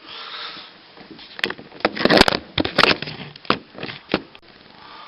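A quick run of sharp knocks and clatters, about a dozen over three seconds and loudest in the middle, after a soft hiss at the start.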